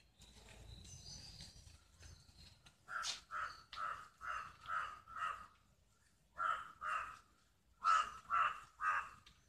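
A crow cawing in quick runs: six caws, a pause, two caws, then three more, each run with calls a little under half a second apart. Faint high bird chirps come before the first caw.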